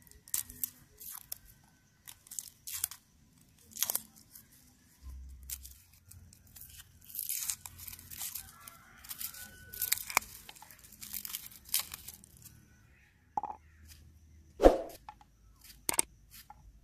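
Small knife slicing through raw garlic cloves held in the fingers: irregular crisp crunching cuts, with one louder knock about three-quarters of the way through.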